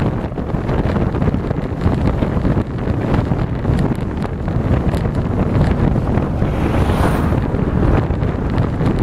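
Wind buffeting the microphone of a camera on a moving vehicle at highway speed, a steady rumble with road noise beneath. A brief hiss swells about seven seconds in.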